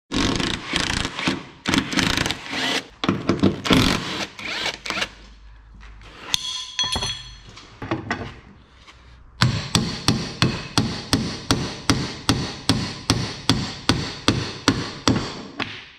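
Cordless impact wrench rattling as it undoes the suspension saddle bolts. Then a hammer strikes a long steel bar, a steady run of sharp metallic blows about three a second.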